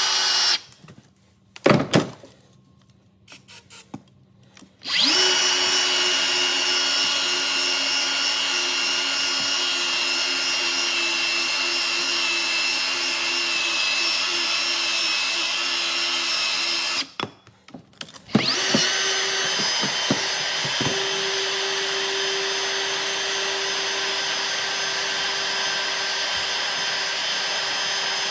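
Milwaukee M18 FUEL cordless pipe threader motor running with a steady whine as its die head cuts threads on a steel pipe. It stops just after the start, clicks a couple of times in a quiet gap, runs again from about five seconds in, stops with more clicks near the seventeen-second mark, then starts again and runs on.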